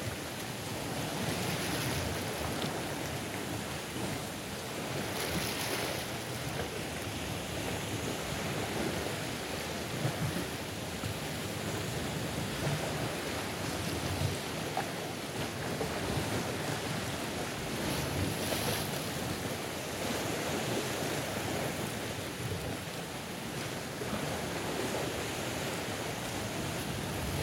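Sea waves breaking and washing against a rocky shore in a steady surf, with louder surges of breaking water about a second in, around five seconds in, and again near the middle.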